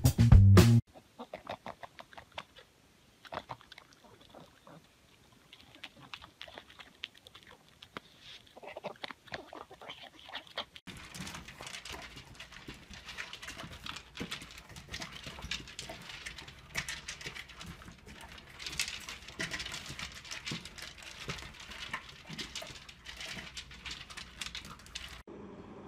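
Two puppies eating dry kibble from plastic slow-feeder bowls: a dense rattling and clicking of kibble and teeth against the plastic, starting about eleven seconds in after a stretch of faint, scattered clicks.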